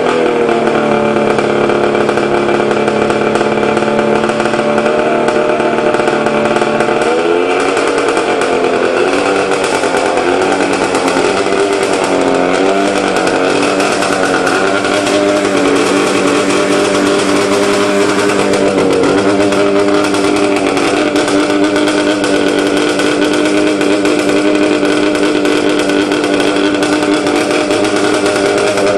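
A 1998 Ski-Doo MXZ 500 snowmobile's two-stroke engine, cold-started for the season on stale fuel, running loudly at a fast idle. Its revs wander up and down for a few seconds partway through, then settle to a steady idle.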